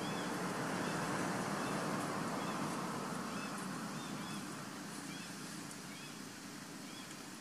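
Outdoor ambience: a distant engine drone that slowly fades, with short high chirps repeating at an even pace.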